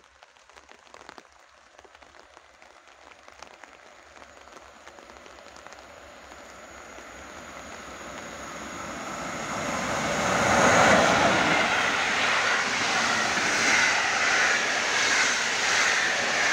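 Electric passenger train approaching and running through the station at speed. A low rumble grows from about 7 s in and is loudest at about 10 s as the locomotive passes. It then becomes a steady rushing, rattling roll as the coaches go by.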